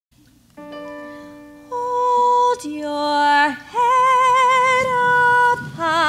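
Musical-theatre song with pit-band accompaniment: a chord sounds about half a second in, then a girl sings long held high notes, with a wide vibrato from about four seconds in.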